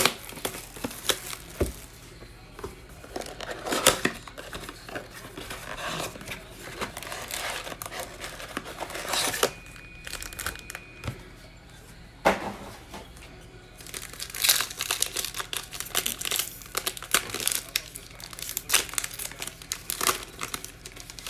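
Plastic wrapping of a trading-card blaster box and its card packs being torn open and crinkled, with irregular crackling and rustling.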